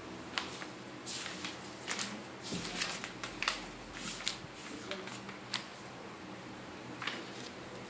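Scattered light clicks and taps, irregular and a fraction of a second apart or more, over a faint steady room hiss.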